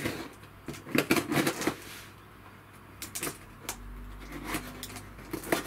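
A small parcel box being opened by hand: scattered sharp clicks and taps of packaging being handled, most in the first two seconds, a few more near the end.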